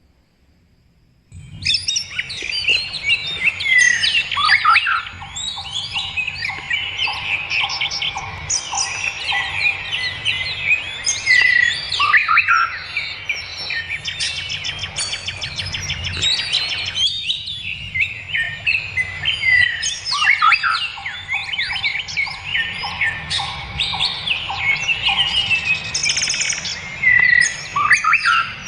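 Several wild songbirds chirping and singing together, many quick overlapping calls and whistles. The calls begin after about a second and a half of quiet. Twice a bird gives a run of evenly repeated lower notes, about three a second.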